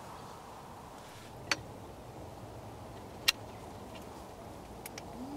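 Steady low background noise with two sharp clicks about two seconds apart, then the first note of a wood pigeon's coo starting right at the end.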